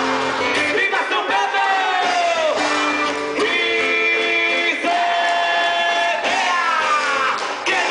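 Live festival music with singing voices, some phrases sliding down in pitch, mixed with crowd shouts.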